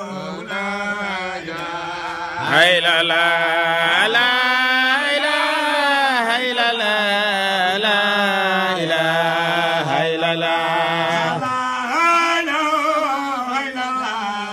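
An unaccompanied man's voice chanting an Islamic devotional chant, drawing out long, wavering held notes. The voice gets louder and closer about two and a half seconds in and drops back near the end.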